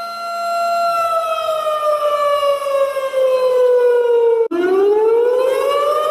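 Siren wailing: a steady tone that slowly falls in pitch, cuts out for an instant about four and a half seconds in, then rises back up to its steady pitch.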